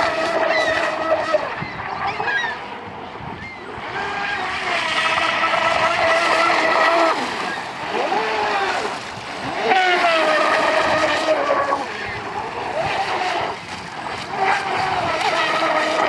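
Brushless RC boat motor, run by a 200-amp Eachine SS 200A ESC, whining at high speed in repeated runs. The high whine swells and fades about four times as the boat passes, and its pitch slides up or down now and then.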